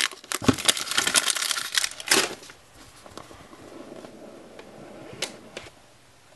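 Clear plastic shrink-wrap being pulled off a cardboard phone box, crinkling and crackling for about two and a half seconds. Quieter rubbing of the box in the hands follows, with one light tap about five seconds in.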